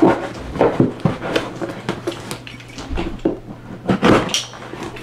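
Cardboard shipping box being opened and handled by hand: irregular rustles, scrapes and knocks of the flaps and cardboard packing.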